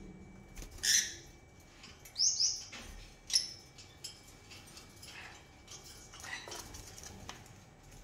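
A cage of lovebirds chirping: a few sharp, shrill calls, two of them quick rising chirps, in the first three and a half seconds, then fainter scattered chatter.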